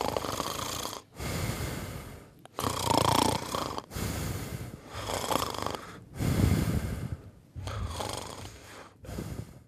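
A man snoring, one rasping breath after another, about eight in all.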